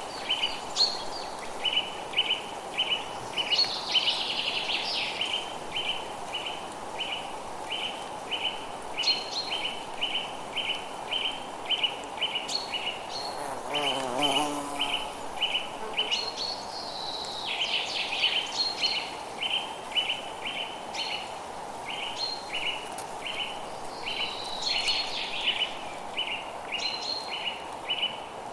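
Forest ambience: a chirp repeating evenly about twice a second throughout, with birds calling over it in short whistles and several bursts of twittering, over a steady background hiss.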